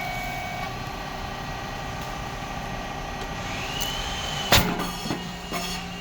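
SYP8080 rice cake popping machine running, with a rising whine and then one loud sharp pop about four and a half seconds in as the heated mould opens and a rice cake puffs, followed by a steady low hum.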